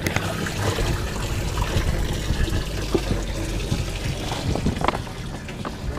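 Water trickling and splashing in a boat's livewell, with scattered crackles from a clear plastic fish weigh-in bag being handled, over a steady low hum.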